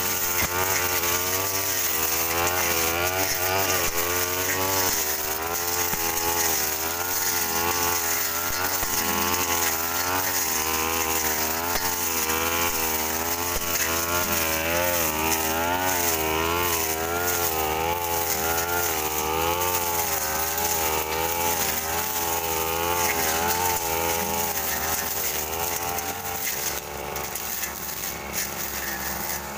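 Backpack brush cutters running hard while cutting undergrowth and ferns. The engine pitch rises and falls about once a second as the cutting head is swung through the growth and takes load.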